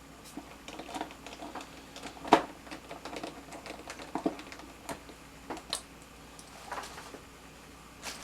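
Scattered light clicks and knocks of small parts and screws being handled while the landing gear is fitted to a foam RC airplane, with one sharper knock about two seconds in.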